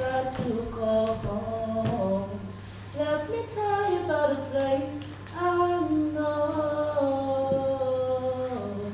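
A woman singing a slow unaccompanied melody, in phrases of long held notes that step up and down.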